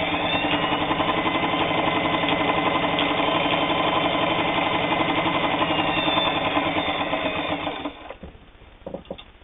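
Singer 223 sewing machine running steadily at speed, sewing a zigzag stitch through eight layers of heavy denim, then stopping about eight seconds in. A few faint clicks follow near the end.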